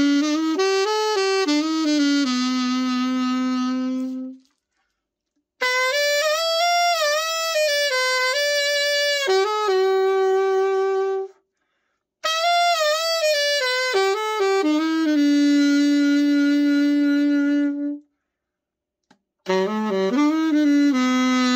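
Selmer Reference 54 alto saxophone being play-tested after a full overhaul: four short melodic phrases separated by brief silences, each ending on a long held note, some with vibrato. The repairer judges it sealed with no leaks and the low notes coming through fully.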